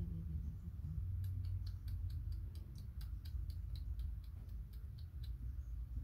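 A quick run of small, sharp clicks, about five a second, starting about a second in and stopping about a second before the end, over a low steady hum.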